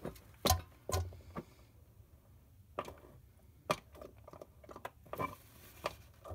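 Hand-operated fluid transfer pump being worked to push gear oil through a hose into a car's rear differential, giving about six short clicks at irregular intervals.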